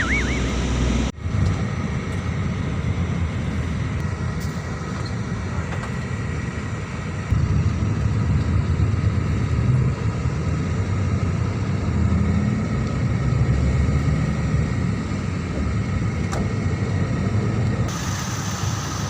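Steady low rumble of an intercity bus running, engine and road noise, with a short break about a second in.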